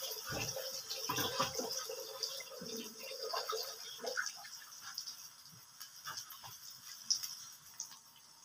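Red onion and garlic frying in a little oil in a wok: a faint sizzle with small crackles, dying down over the last few seconds.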